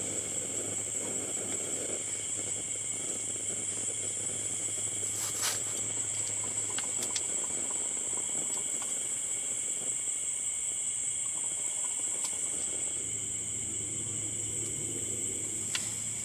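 Chorus of insects such as crickets or katydids, a steady high-pitched drone, with a few faint clicks.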